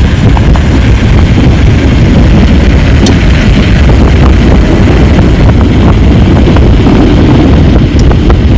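Loud, steady rumbling wind on the microphone of a mountain bike rider under way, with tyre noise and a few sharp clicks and knocks from the bike on a rough surface.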